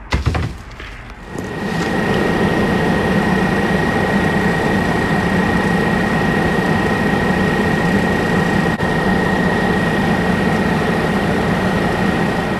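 A motor or engine running steadily, starting about a second in, with a constant thin high whine over a low even hum.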